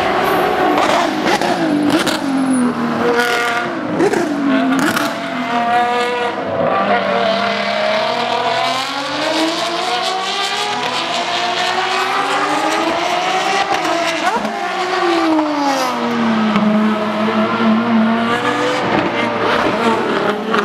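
Ferrari 599XX and FXX track cars' V12 engines, loud, passing through a chicane: the pitch drops as they brake and shift down, with several sharp cracks in the first few seconds, then climbs as they accelerate away, over and over as the cars go by.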